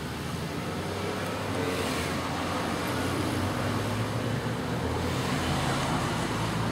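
Road traffic: a motor vehicle's engine and tyre noise as a steady low hum that slowly grows louder.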